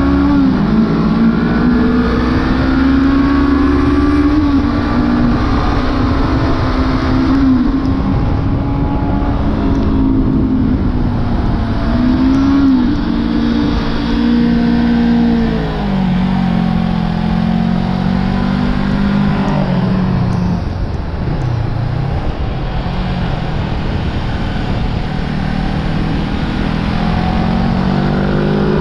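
Honda CB500F's 471 cc parallel-twin engine heard from the rider's position at track speed. Its pitch rises and falls several times as the bike accelerates and slows through corners, over steady wind noise.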